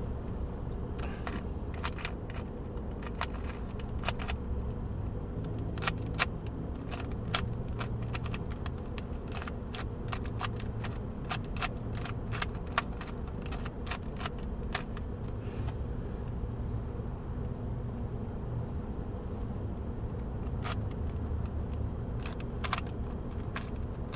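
Plastic clicking of a 2x2 Rubik's cube being turned, in quick irregular runs of clicks that are busiest in the middle, over a steady low rumble.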